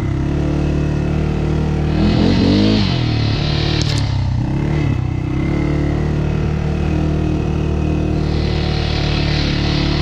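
ATV engine running steadily under way, revving up and easing back off about two seconds in, then dipping and picking up again a couple of seconds later.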